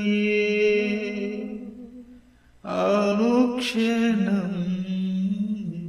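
A solo voice singing slow, long-held notes in a chant-like melody. The first phrase fades out about two seconds in, a new one begins just under three seconds in, and the pitch steps down near the end.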